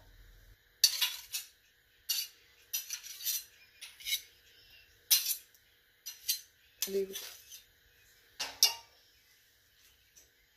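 Metal spoons clinking and scraping against each other and against a stainless-steel karahi as lumps of solid desi ghee are worked off a slotted spoon into the pan. The clinks come irregularly, singly and in short clusters.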